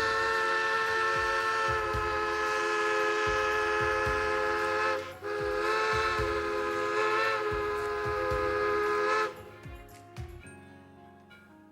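Steam whistle of Grand Trunk Western 4-8-4 Northern locomotive 6325 sounding two long blasts, several notes held together, with a brief gap between them. After that, quieter low rumbling and thumps of the passing locomotive.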